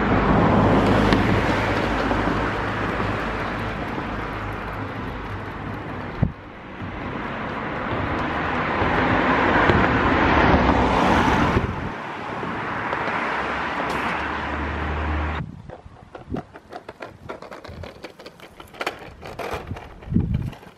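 Steady rumble of wheels rolling over brick paving, swelling and fading, that stops suddenly about fifteen seconds in; a few faint knocks follow.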